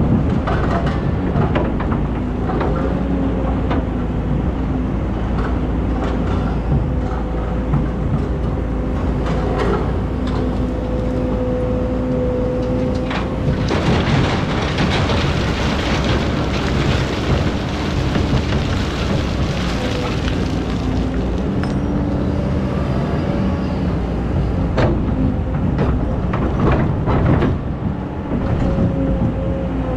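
Excavator's diesel engine running steadily under load, its pitch shifting slightly as it works, with scattered knocks and clanks. A louder rushing noise runs for several seconds in the middle.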